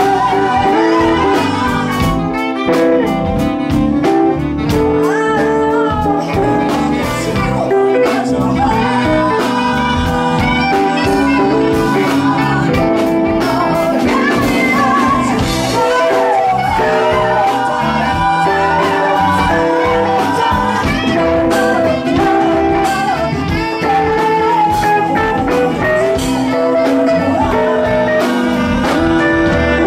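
Live band playing a song: singers over electric guitar and drums, with a steady beat.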